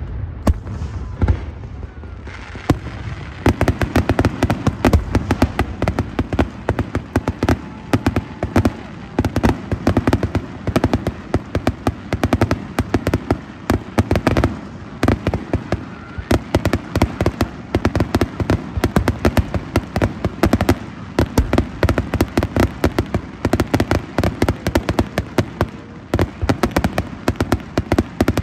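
Fireworks display: a few separate bangs in the first seconds, then from a few seconds in a dense, continuous run of rapid crackling and popping.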